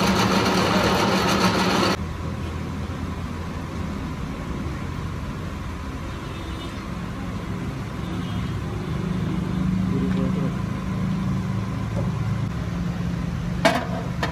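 Workshop lathe running with a steady low mechanical hum. A louder, rougher noise during the first two seconds cuts off abruptly, and a single sharp metallic clank comes near the end.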